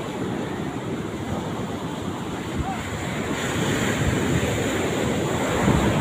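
Big waves surging and breaking, with wind buffeting the microphone. It grows louder about halfway through and is loudest near the end.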